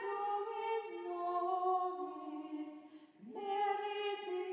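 Soft background music of long held notes that change slowly; it fades almost to nothing about three seconds in, then a new chord rises back in.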